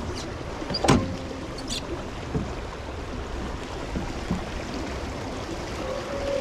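Steady rush of a brook running high, like a small river, with a sharp knock about a second in.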